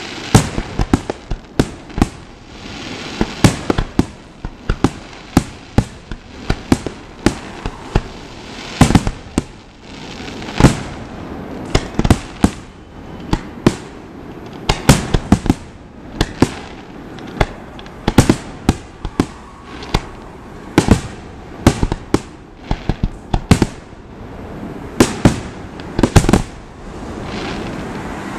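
Aerial firework shells bursting in a long, irregular barrage of sharp bangs, often several a second, with a steady noisy wash between them.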